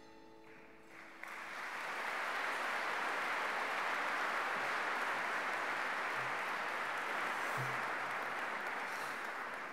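A large audience applauding: soft instrumental music fades out in the first second, then the clapping swells up, holds steady and begins to taper near the end.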